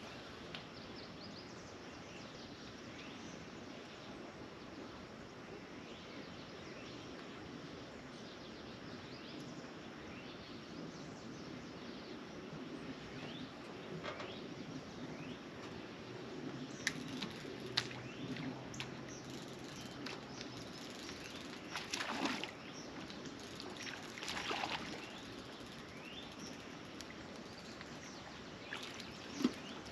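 Small birds chirping and calling over a steady outdoor background hum. In the second half come a few sharp clicks and short rustling bursts.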